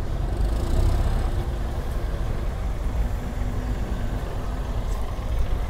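Steady low rumble of motor vehicle engines running, with no sharp events.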